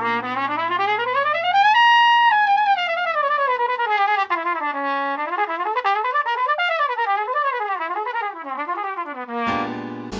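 Solo trumpet runs quickly up the C half-whole diminished scale to a high note held about two seconds in. It then winds back down and improvises twisting phrases over a C13♭9 (dominant seventh) harmony. A sustained backing chord sounds under the opening and comes back near the end.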